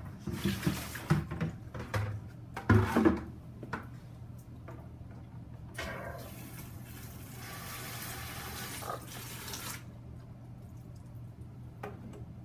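Diluted disinfectant solution running from a wall-mounted two-way ball valve mixing station as air is bled out of the line, a steady rush of liquid from about six seconds in until near ten seconds. Before it come a few knocks and handling noises.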